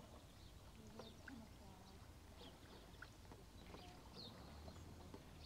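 Near silence with faint, scattered bird chirps over a low rumble.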